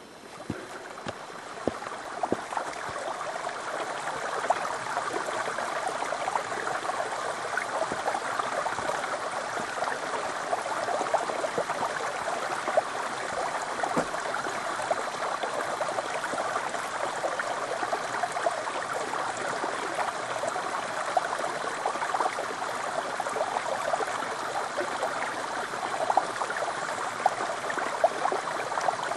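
Small mountain stream running down a sloping rock slab into a pool: a steady rushing trickle that grows louder over the first few seconds, with a few light knocks near the start.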